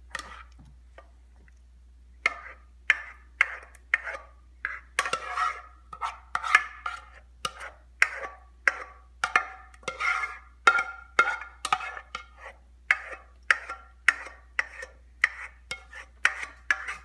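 Spoon scraping and knocking against the inside of a saucepan, about two strokes a second, as thick croquette mixture is scraped out into a baking dish. The strokes start about two seconds in.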